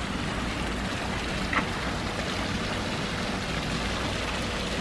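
Water from a tiered brick garden fountain spilling in sheets into its pond: a steady splashing rush that grows a little louder in the first second.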